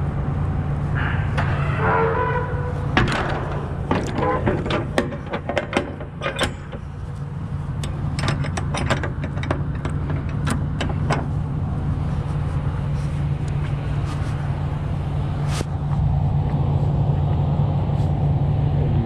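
Low steady hum of an idling diesel truck engine. In the first half there is a run of sharp clicks and knocks, and the hum grows louder near the end.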